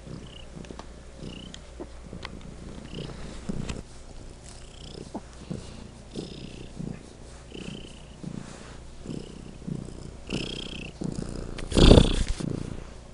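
Domestic cat purring loudly, close to the microphone, in a steady rhythm of pulses. About twelve seconds in, a loud bump lasting about half a second is the loudest sound.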